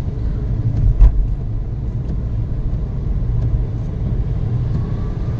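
Steady low rumble of road and engine noise heard inside a moving vehicle in heavy rain, with one sharp thump about a second in.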